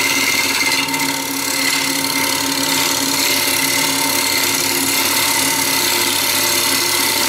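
A gouge turning the outside of a box elder bowl blank on a wood lathe running at 1000 rpm: a steady noise of shavings being cut away, with a steady machine hum underneath.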